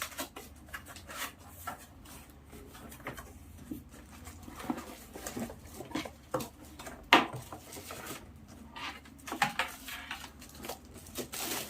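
Packaging handled while a new keyboard is unboxed: irregular rustling, scraping and light clicks, with one sharper knock about seven seconds in.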